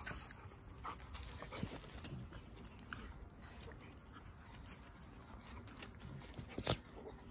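Two dogs play-fighting on grass: quiet scuffling with brief low vocal sounds. One sharp snap near the end is the loudest sound.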